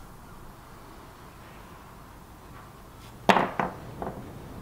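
A plastic lighter put down on a wooden workbench: one sharp knock a little over three seconds in, then two smaller knocks.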